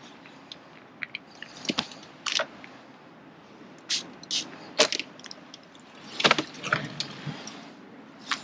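An angler handling feeder fishing tackle: a string of short clicks, knocks and rustles, uneven, with sharper clicks around the middle and a cluster a little later.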